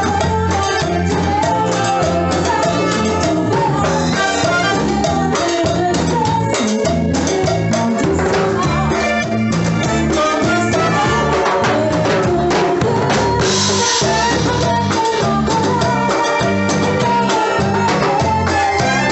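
Live band playing Latin dance music, with drum kit, timbales and bass driving a steady groove and a cymbal crash about two-thirds of the way through.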